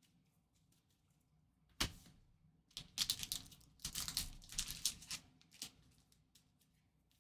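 Trading cards handled by hand: one sharp tap about two seconds in, then about three seconds of quick clicking and sliding as cards are flicked through and shuffled against each other.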